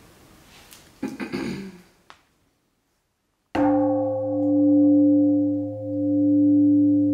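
A short rustle of handling about a second in, then a very large singing bowl struck once with a felt mallet about three and a half seconds in, ringing on with a deep hum and several steady tones. The strongest tone swells and fades in slow waves, about once every second and a half.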